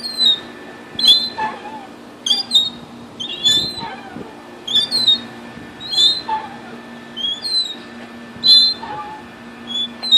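Playground bucket swing squeaking at its chain hangers as it swings back and forth: a short, high squeak about every second, keeping time with the swing.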